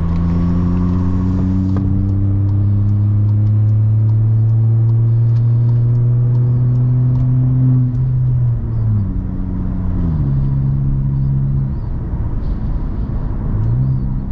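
Volkswagen T-Cross 1.0 TSI three-cylinder turbo engine pulling under acceleration through a straight-through exhaust with no muffler, loud and rising steadily in pitch for about eight seconds. The pitch then drops in two steps, like upshifts, holds, and starts climbing again near the end.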